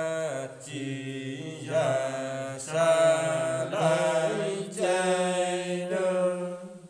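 Unaccompanied Nùng folk singing (hát Nùng): long, slowly bending sung notes in a chant-like style, in short phrases that stop just at the end.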